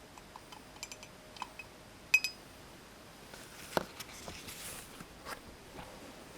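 Small household objects being handled: scattered light clicks and taps, one sharp ringing clink about two seconds in, and a duller knock a little before the four-second mark.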